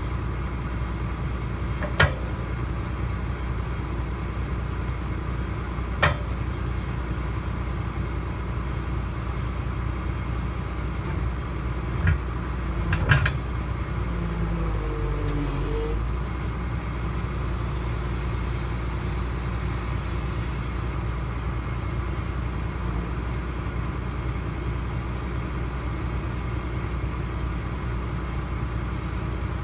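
Link-Belt 3400 excavator's diesel engine idling steadily, with a few sharp knocks about two and six seconds in and a close pair past the middle.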